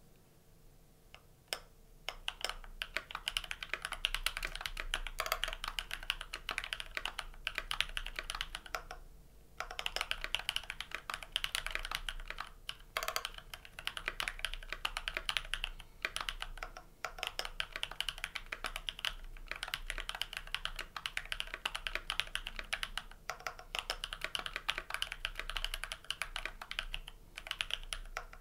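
Typing on a GMMK Pro mechanical keyboard modded with lubed, filmed tactile switches (Durock T1 housings and springs with Halo Clear stems), screw-in stabilizers and GMK Maestro keycaps. It is a fast, steady run of keystrokes that starts about two seconds in and has a few brief pauses.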